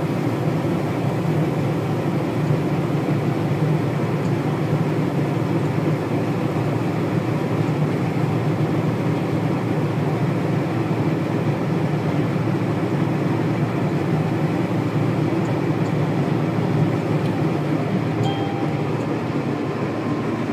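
Combine harvester running steadily at working speed, heard from inside the cab, while it cuts oilseed rape and unloads grain through its auger into a cart alongside.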